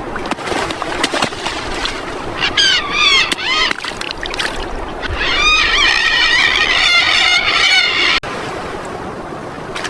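A group of birds calling: a few honking calls bending up and down, then many calls overlapping in a dense chorus that cuts off suddenly near the end, over a steady rushing background.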